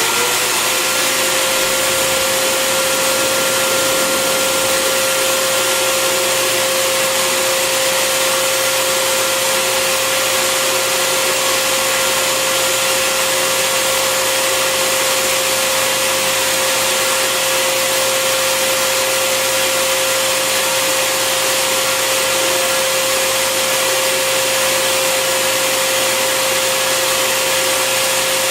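Bissell Garage Pro wet/dry vacuum running as a blower: its motor climbs to full speed in the first second, then holds a steady whine over a loud rush of air.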